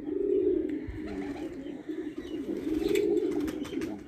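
Pigeons cooing, several low, pulsing coos one after another.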